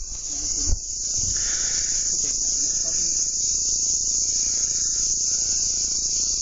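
Loud, steady high-pitched insect chorus droning without a break, with a single brief thump less than a second in.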